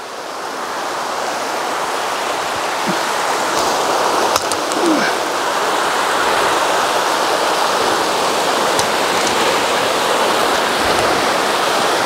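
Small waterfall on a woodland burn, water rushing steadily over rock. It grows louder over the first second or two, then holds level.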